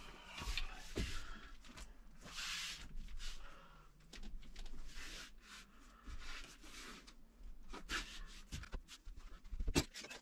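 Vinyl floor planks being handled and pressed into place on a van floor: scattered knocks and thumps with scraping and sliding in between. The loudest thump comes near the end.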